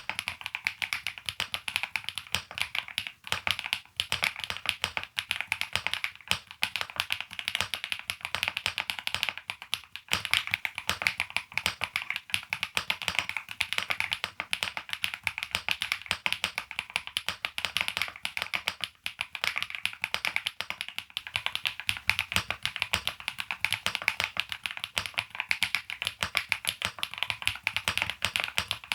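Typing sound test on an Akko Mineral 02 aluminium mechanical keyboard with Akko Mirror switches: a steady, fast run of keystroke clacks with a few brief pauses.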